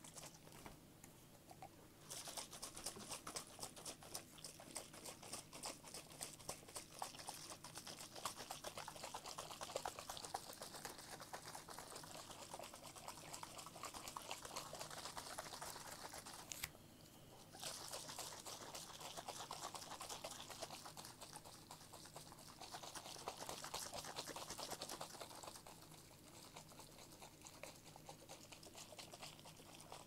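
Quiet, rapid fingernail tapping and scratching on a small plastic disinfectant bottle, a dense crackle of fine clicks that breaks off briefly about 17 seconds in and grows softer near the end.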